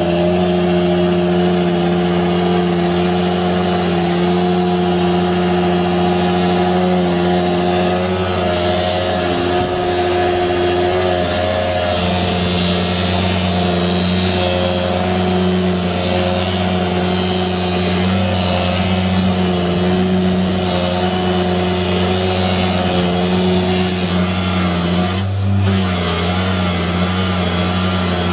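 Angle grinder motor driving a sanding drum as a spindle sander, running steadily at high speed with a constant hum, while the edge of a chipboard board is sanded against the spinning drum. The tone shifts a little a couple of times as the board is pressed on.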